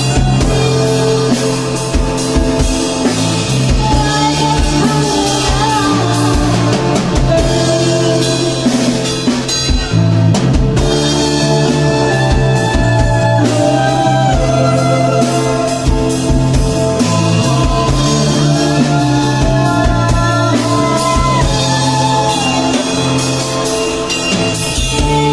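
A rock band playing live, with a drum kit, electric guitar, bass and singing.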